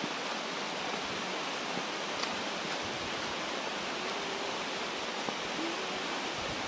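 Heavy rain falling, a steady, even hiss.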